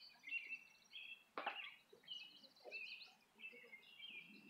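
Several songbirds chirping and trilling faintly, in many short overlapping calls, with one brief knock about a second and a half in.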